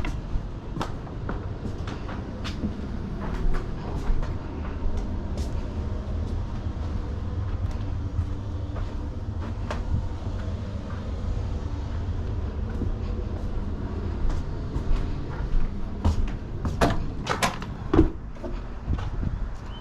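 Vacuum cleaner running with a steady low hum, its nozzle knocking and scraping against a bed frame, with a quick cluster of sharp knocks near the end.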